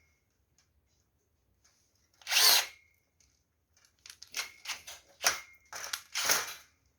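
Power drill-driver run in short trigger bursts: one longer burst a couple of seconds in, then a quick series of brief pulses near the end.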